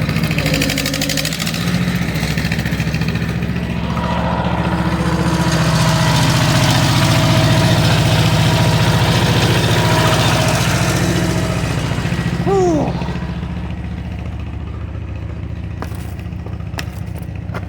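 An engine running steadily, working harder and louder through the middle, then easing back about twelve seconds in with a brief high squeal. A few sharp clicks follow near the end.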